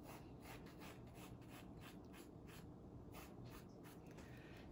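Faint scratching of a 2H graphite drawing pencil on sketchbook paper: short, light strokes, several a second, thinning out near the end.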